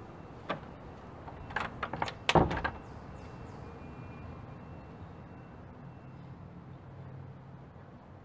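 A door being shut. There is a click about half a second in, then a quick run of latch and handle clicks, and the thud of the door closing about two and a half seconds in. A faint low hum of room tone follows.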